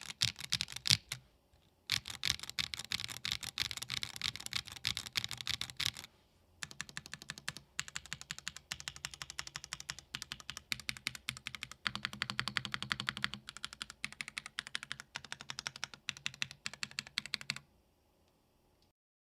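Typing on a Tofu65 2.0 mechanical keyboard with Gateron Baby Raccoon linear switches and PBT keycaps: fast, steady keystroke clacks in three runs, broken by short pauses about a second and a half in and about six seconds in. The typing stops a little under two seconds before the end.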